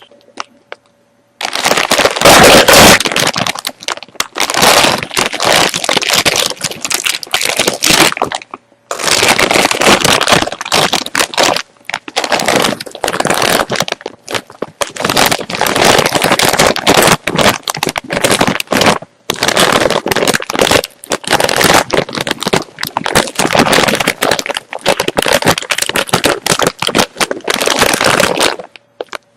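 Crunchy chips being bitten and chewed: dense crackling crunches in long bouts, beginning about a second and a half in and broken by brief pauses about a third and two thirds of the way through, stopping just before the end.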